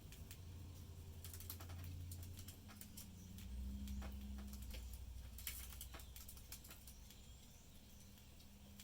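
Budgies pecking and cracking seed: faint, quick, irregular clicks and taps, some in small clusters. A low steady rumble runs underneath and swells about midway.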